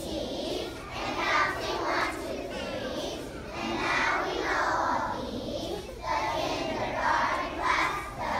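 A large group of young children singing together in unison.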